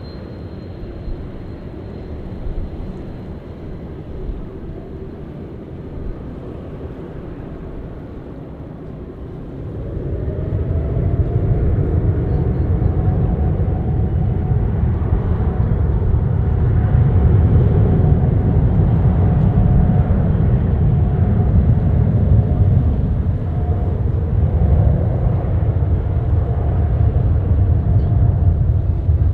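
Jet airliner engines: a moderate low rumble, then about ten seconds in it swells into a loud, deep rumble with a steady whining tone that holds to the end.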